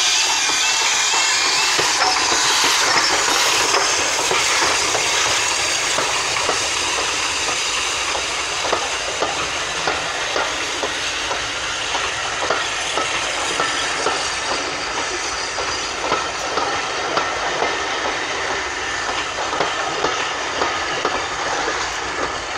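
2-10-0 steam locomotive 90775 passing close by with its train, amid steam hiss and running noise. A two-tone warbling alarm stops about two seconds in. The coaches then roll past, their wheels clicking over the rail joints in an uneven rhythm.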